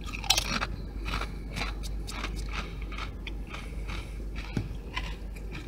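A tortilla chip bitten off and chewed, a steady run of crisp crunches.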